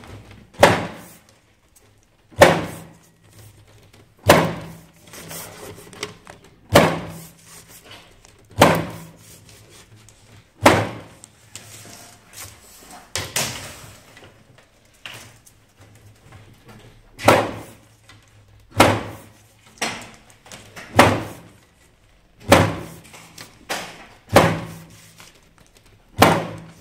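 Kanmak eyelet press stamping metal eyelets into the pleated edge of a mosquito net: a sharp clack every one to two seconds, each ringing briefly, over a faint low hum.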